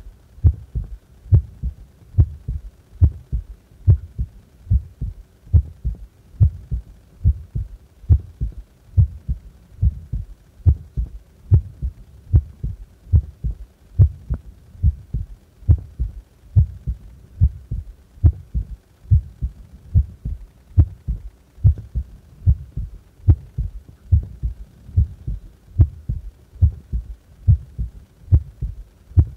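Human heart beating at rest: a steady lub-dub double thump about once a second.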